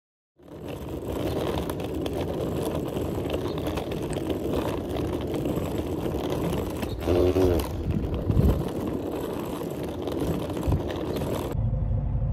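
Hard-shell suitcase wheels rolling over pavement with footsteps and street noise, a steady rattling hiss, with a brief pitched sound about seven seconds in. Near the end it cuts to a bus's low engine rumble.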